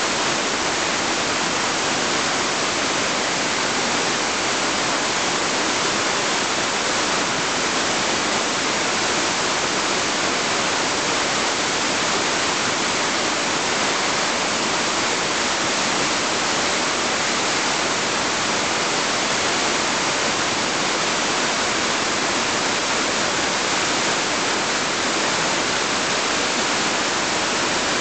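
Cleddau River rushing and splashing over rocks in shallow rapids: a loud, steady rush of water with a hissy, high edge.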